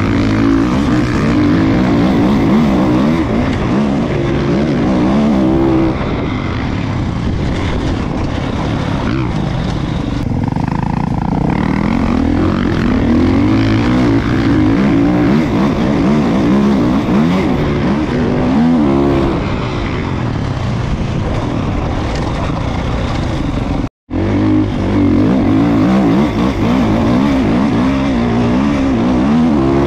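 Kawasaki dirt bike engine heard up close from on the bike, revving up and down again and again as it is ridden along a dirt trail. The sound cuts out for an instant about three quarters of the way through.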